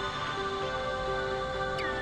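Background music: soft, sustained tones with a short note repeating under them, and a falling sweep near the end.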